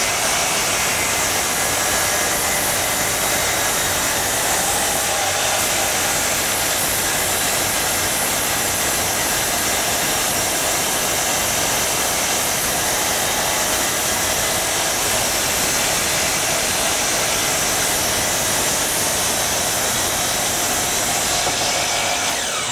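DeWalt 12-inch compound miter saw running and cutting slowly through a board of ipe, a very hard, dense tropical hardwood, with a loud, steady whine that stops at the very end. The cut is slow because the wood is so hard, not because the blade is dull.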